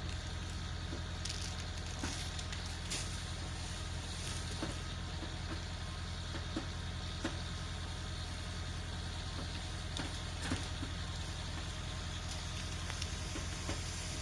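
Landini 6870 tractor's diesel engine idling steadily, with scattered short clicks and snaps over it.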